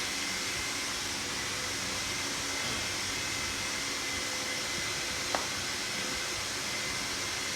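Steady whooshing machine noise with a faint high whine running through it, and one small click about five seconds in.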